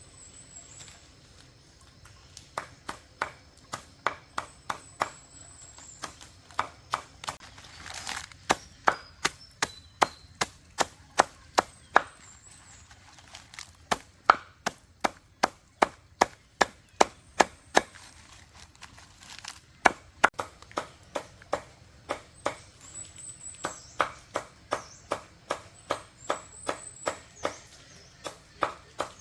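Repeated chopping strokes with a blade, about three sharp chops a second, in runs of several seconds with short pauses between them.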